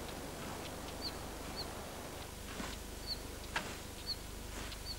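Outdoor meadow ambience: a small bird repeats a short high chirp about once a second. From about halfway, a few swishing sweeps come roughly a second apart.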